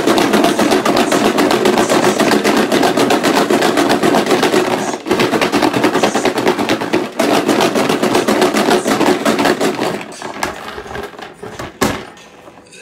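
Numbered plastic ping-pong balls rattling inside a clear plastic tub being shaken hard to mix them for a draw: a dense, fast clatter with two short breaks, thinning out near the end, then a single knock.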